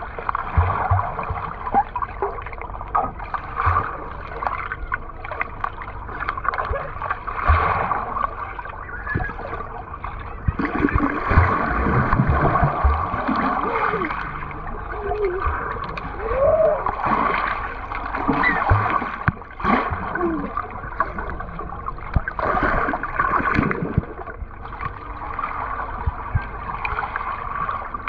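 Swimming pool heard underwater through a submerged camera: bubbling, gurgling and muffled splashing from swimmers diving for toys, with scattered knocks.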